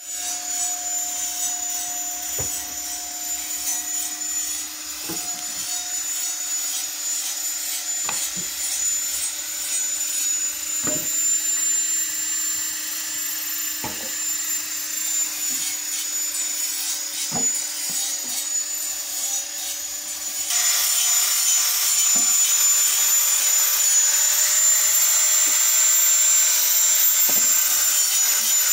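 Sawmill machinery running: a steady hum with a high whine and a few scattered knocks. About twenty seconds in it switches suddenly to a louder, hissing machine sound close to the bandsaw.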